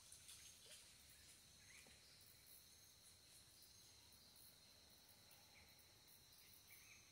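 Near silence, with a faint, steady, high-pitched insect drone.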